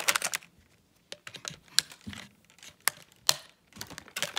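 Clear plastic packaging bag crinkling in the hands while a Beyblade is unwrapped, in short irregular crackles and clicks.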